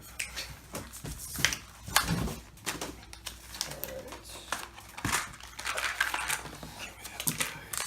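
Hands unpacking a collectible dice-and-card game pack: packaging rustling and crinkling, with irregular sharp clicks and taps of plastic dice and cardboard being handled.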